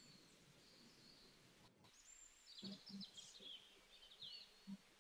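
Near silence: faint background room tone with a few faint, high bird chirps from about two seconds in.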